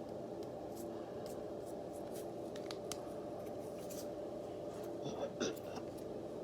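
Small handling noises: light scratches and clicks, with a couple of louder rustles about five seconds in, over a steady low hum.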